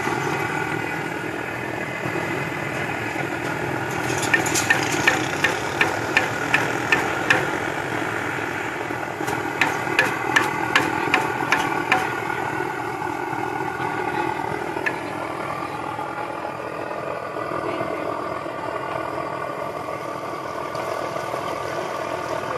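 Wire-mesh frying skimmer rapped against the rim of an aluminium pot of frying oil, shaking the oil off French fries, in two runs of quick sharp clicks about three a second. Under it runs a steady engine-like hum.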